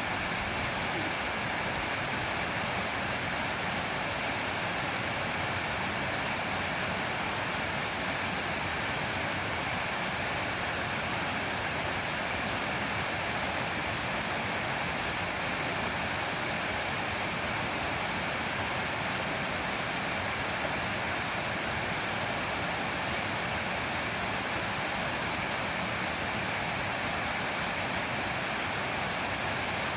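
Mountain stream water rushing over rocks in a small cascade, a steady, unbroken rush.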